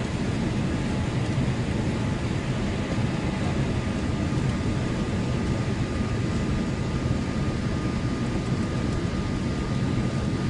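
Steady cabin roar of a Boeing 787 in flight, its engines and rushing airflow heard from a seat by the window, with a faint steady whine over the top.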